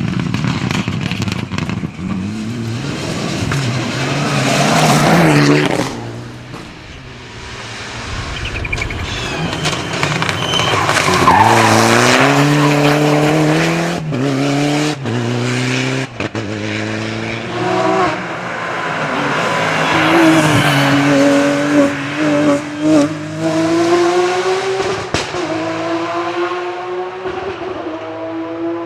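Rally cars at full throttle on a special stage, engines revving up through the gears with repeated climbs in pitch broken by gear changes and lifts, as several cars come by in turn.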